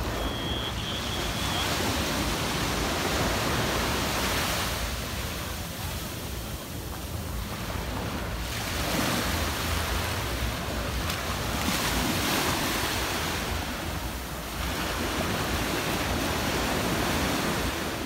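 Small surf breaking and washing up a sandy beach, swelling and fading every few seconds, with wind rumbling on the microphone.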